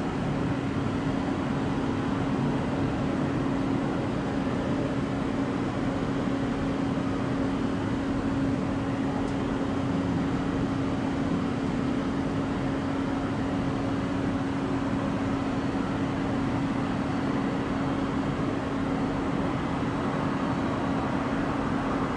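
Steady airport apron drone: an even rushing noise with a constant low hum that neither rises nor falls.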